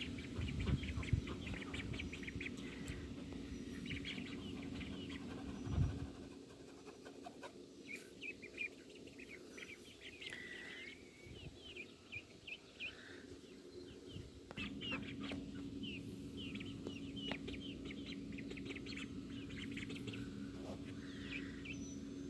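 Young chicks and ducklings peeping, many short high peeps coming in quick runs, over a steady low hum. A low rumbling runs through the first six seconds.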